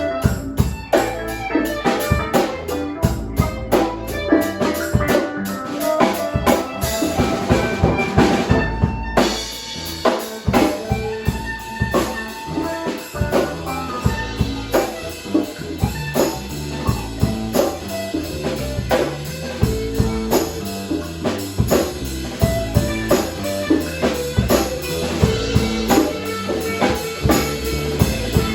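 Music with a steady drum-kit beat under held melodic notes.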